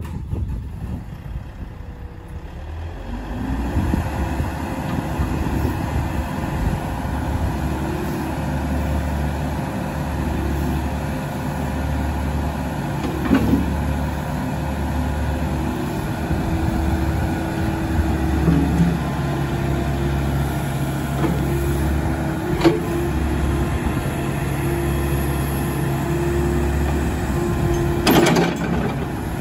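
Volvo ECR88D compact excavator's diesel engine running, picking up about three seconds in, its note stepping up and down as the hydraulics work the boom and bucket. A few sharp knocks, about a third of the way in, around three quarters of the way in and near the end.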